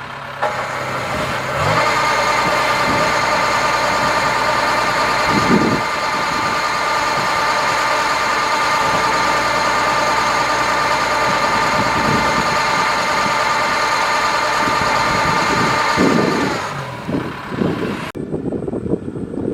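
Kubota DC-70 Plus combine harvester's diesel engine running steadily at working revs. Its pitch steps up about two seconds in and drops away near the end.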